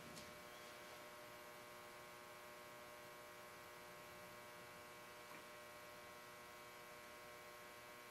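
Near silence: a steady electrical hum, with a faint tick or two.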